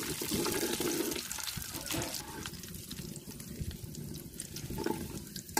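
Whole spices and bay leaves sizzling and crackling in hot groundnut oil in an aluminium pot, frying to release their flavour, with a metal ladle stirring them.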